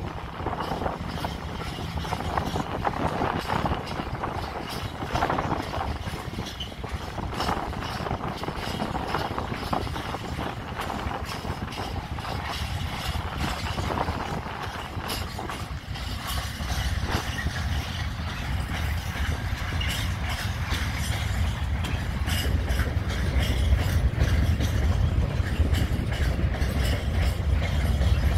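Freight train of covered hopper wagons rolling past on the track, its wheels clattering over the rails. A low rumble grows louder over the last several seconds.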